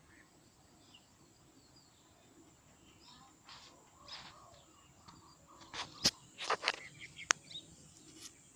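Faint outdoor background with brief rustling, then a quick cluster of sharp clicks and taps about six to seven seconds in.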